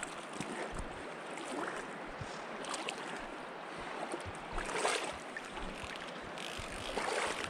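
Creek water splashing around the legs of a wader moving through a shallow stream, with louder splashes about five seconds in and again near the end.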